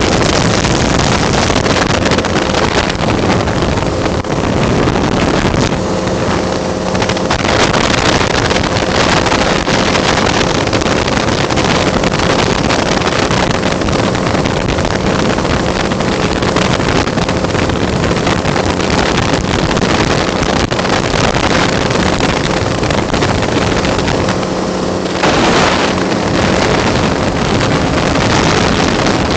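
Flex-wing microlight trike in flight: a steady engine drone under heavy wind rush on the microphone in the open cockpit. The wind rush eases briefly twice, about six seconds in and near the end, and the engine note comes through more clearly.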